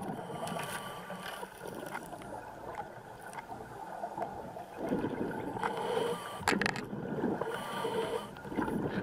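Underwater noise picked up by a diver's camera on the seabed: a steady rushing hiss that swells louder about five seconds in and again near the end, with a sharp knock about six and a half seconds in.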